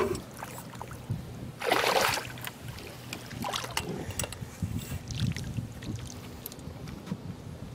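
A short burst of splashing about two seconds in as a hooked bass is scooped into a landing net beside the boat, followed by lower water and handling noise with a few light clicks.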